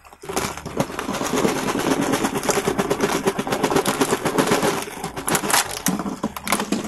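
Dozens of small plastic car-shaped candy toys clattering as they pour out of a clear plastic jar onto a tabletop: a dense rattle of knocks for about five seconds, then a few separate knocks as the last ones tumble out.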